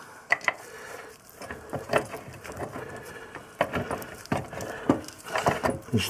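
Irregular light metallic clicks, taps and scraping as a bolt is pushed in and started by hand where a BMW R1100RT's final drive meets the swinging arm, with a few sharper knocks.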